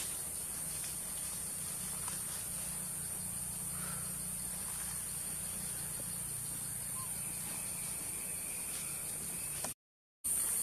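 Steady high-pitched insect chorus, a continuous shrill hiss, with a few faint ticks and rustles; it cuts out for about half a second near the end.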